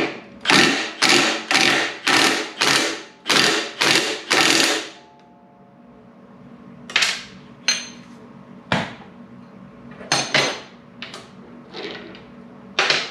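Cordless impact wrench hammering in about eight short bursts over the first five seconds, loosening a motorcycle rear shock's mounting bolt. Scattered sharp metal clinks follow in the second half.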